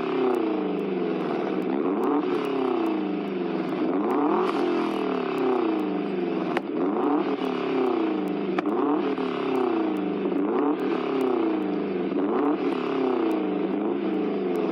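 1970 Chevrolet Chevelle with straight-pipe exhaust being revved over and over, its engine pitch rising and falling about once a second.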